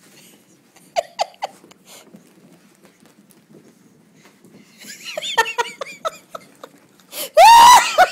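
A person laughing: soft repeated bursts of laughter start about five seconds in and build to a loud, high-pitched squeal of laughter near the end. A few short sharp sounds come about a second in.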